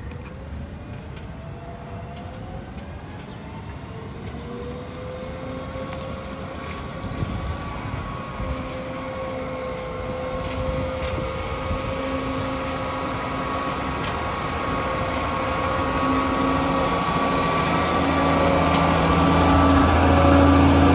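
Crane Carrier refuse truck driving slowly up an alley toward the listener. Its engine hum and a steady whine grow louder until it is alongside.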